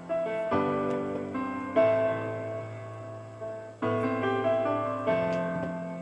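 Instrumental break of a pop ballad: piano chords over a held bass, struck about four times and left to ring and fade between strikes.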